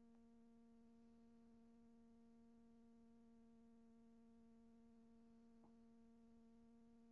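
Near silence with a faint steady hum, and one faint click about five and a half seconds in.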